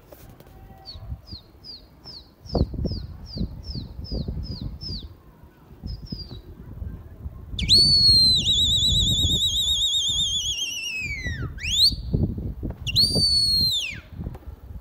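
A pigeon keeper's loud whistle to his flock overhead: a long warbling whistle that drops away in pitch, then a quick upward slide, then a second shorter whistle that falls off. Before it comes a run of about ten short, high, falling chirps, two or three a second.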